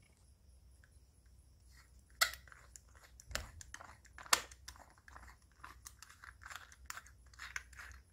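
Hands unscrewing the threaded aluminium body of a C8 flashlight: scraping, crunchy handling noise with sharp clicks, starting about two seconds in, the two loudest clicks near the start of it.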